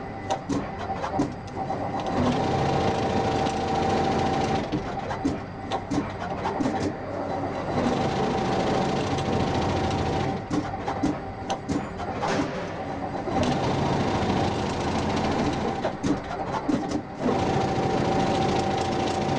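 Stator needle winding machine laying copper wire onto a motor stator: a steady mechanical whir with a held tone, broken every few seconds by stretches of rapid clicking.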